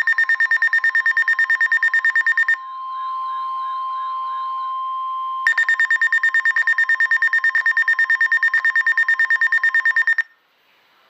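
Emergency Alert System alert tones: a loud, rapidly pulsing electronic beep, then a steady tone with a warbling sound over it for about three seconds, then the rapid beeping again until it cuts off suddenly about ten seconds in.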